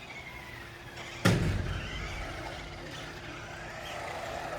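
A single sudden thump a little over a second in, from a remote-control car knocking into something during the game, over a faint steady whine.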